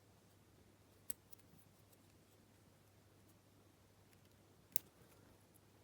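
Faint room tone broken by two sharp little clicks, one about a second in and a louder one near the end, from working at the wafers of a vintage Lockwood 225 wafer padlock's plug. The wafer being worked on is stuck and won't pull out.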